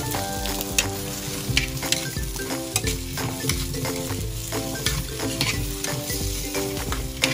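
Cubed potatoes sizzling as they fry in a metal pan, with metal tongs clicking and scraping against the pan as the pieces are turned over several times.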